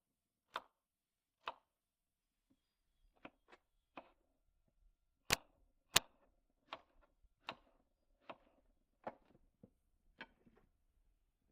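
Knife chopping potatoes into small cubes: separate sharp chops, irregular, roughly one every half second to a second, with two louder ones near the middle.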